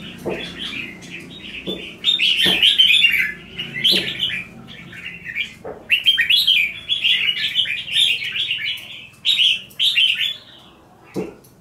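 Red-whiskered bulbuls singing. Their song comes in quick bursts of phrases, getting loud about two seconds in and carrying on until shortly before the end. There are a few soft knocks among the song.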